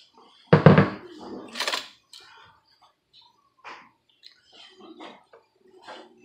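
A hand rubbing thick, wet chile marinade over a raw turkey in a bowl, with scattered soft squishing and slapping. About half a second in, a short loud call stands out, then a brief hiss.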